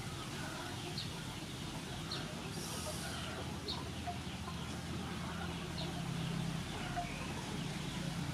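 Birds chirping in short calls about once a second, over a steady low hum.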